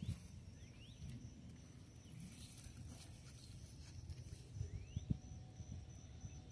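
Quiet outdoor ambience: short rising whistled bird calls about a second in and again near five seconds, over a faint steady pulsing insect trill, with low rumble and a sharp knock about five seconds in.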